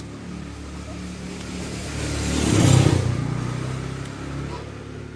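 A motor vehicle passing by: its engine hum swells to a peak about two and a half seconds in, then fades away.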